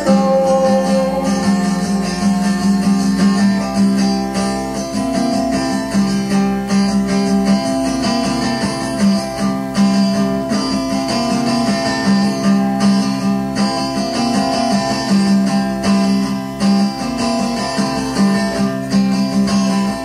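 Guitar music played back from a 1983 cassette tape recording: steady strummed and plucked guitar over a sustained low note, with no break.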